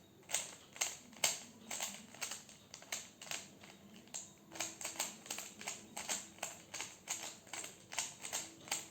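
A 3x3 Rubik's cube turned quickly by hand: a run of irregular plastic clicks and clacks as the layers snap round, a few each second, in the last moves of a solve.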